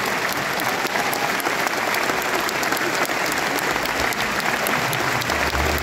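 Live audience applauding steadily, a dense, even clapping.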